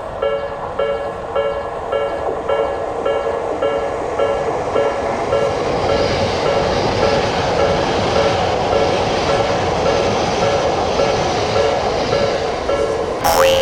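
Japanese railroad crossing bell ringing in a steady rhythm of metallic dings while a train passes, its rumble growing from about halfway through. A short rising whoosh comes near the end.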